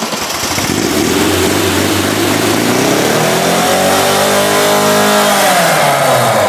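Lada Zhiguli's carburetted four-cylinder engine revved hard. The pitch climbs over the first few seconds, holds at high revs, then drops near the end.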